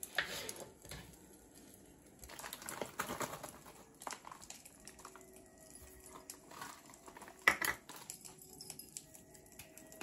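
Small kitchen handling sounds on a wooden worktop: a plastic chopping board being moved, and lumps of crumble topping dropped onto sliced peaches in a ceramic bowl. There are scattered light clicks and scrapes, with a short burst of rustling about three seconds in and a sharp clack about seven and a half seconds in.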